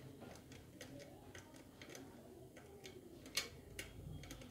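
Light, irregular clicks and ticks of a screwdriver working small screws into a metal CPU-cooler mounting bracket, with one sharper click about three and a half seconds in.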